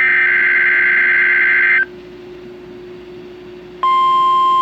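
NOAA Weather Radio SAME header data burst: a harsh, buzzing digital tone lasting about two seconds, received on a WR120 weather radio as part of a Required Weekly Test. After a short gap a steady single-pitch warning alarm tone begins near the end.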